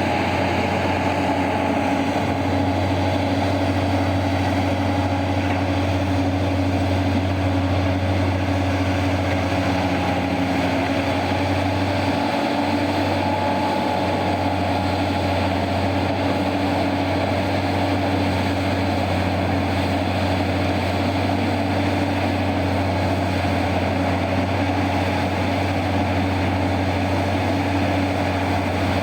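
Diesel engines of heavy mining machinery running at a steady, unchanging drone.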